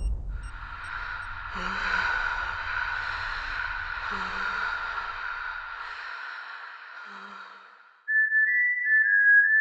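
Eerie horror-film sound effect: a steady hissing drone with a low rumble under it, fading away about eight seconds in. A high, whistle-like melody of the end-credits music then starts.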